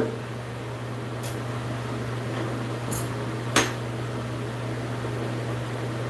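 A steady low hum, with a few faint clicks and one sharper click about three and a half seconds in.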